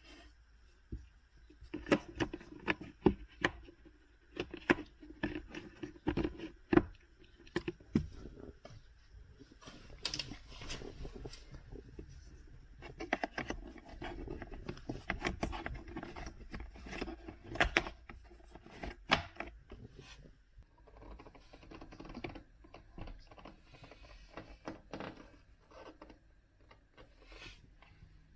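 Hands working on plastic parts during a car cabin-filter change: irregular clicks, taps and knocks with rustling and scraping between them.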